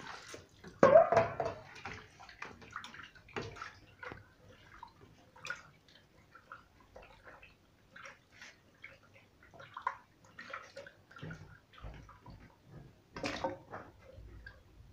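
Hands washing cut pieces of wallago catfish in water in a steel plate: irregular splashing and dripping, with louder splashes about a second in and near the end.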